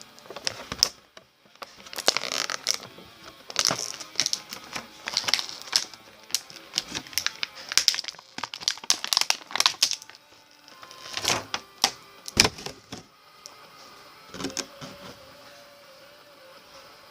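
Plastic and cardboard toy packaging crackling, with many quick sharp clicks and snaps, as an action figure is unboxed; the clicking stops about two-thirds through, leaving faint music.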